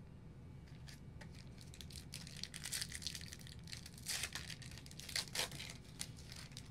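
Plastic wrapper of a football card pack being torn open and crinkled, in short scattered bursts with light clicks.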